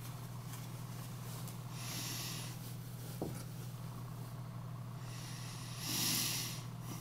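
Two soft breaths through the nose, each a short hiss, about four seconds apart, with a single light click between them, over a steady low electrical hum.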